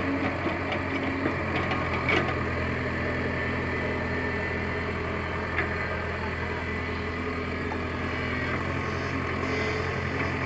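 Tata Hitachi EX70 mini excavator's diesel engine running steadily as the machine works, with a couple of short knocks, the sharpest about two seconds in and another about five and a half seconds in.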